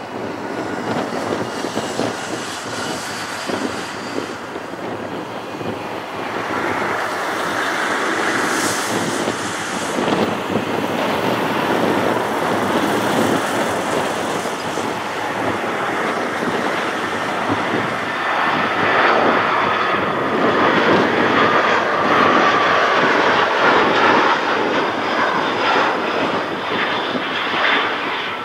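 Jet engines of an Airbus A320-family airliner on final approach with gear down: a steady rushing jet noise that grows louder as the plane comes nearer, loudest in the last third.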